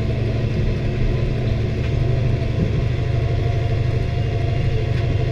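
New Holland T6030 tractor's diesel engine running steadily, heard from inside the cab as it pulls a rock picker.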